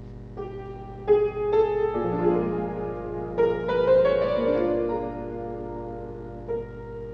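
Piano playing the accompaniment for a ballet barre exercise, entering just after the count-in. Chords and melody notes are struck with clear attacks and ring on as they fade. It is loudest through the first few phrases and softens toward the end.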